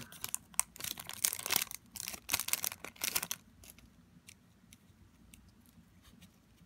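Trading-card pack wrapper being torn open and crinkled by hand for about three seconds, then faint ticks as the cards are handled.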